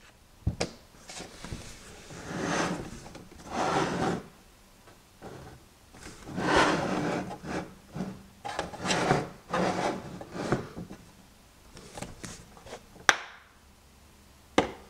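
Irregular rubbing and scraping sounds, a series of swells each lasting about half a second to a second, with a few sharp clicks, the loudest about 13 seconds in.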